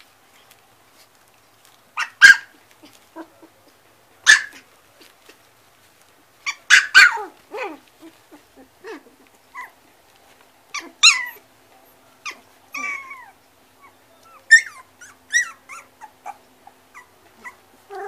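White puli puppies yipping and squealing: a string of short, high-pitched yelps and squeaks, several of them sharp and loud, starting about two seconds in and coming every second or two.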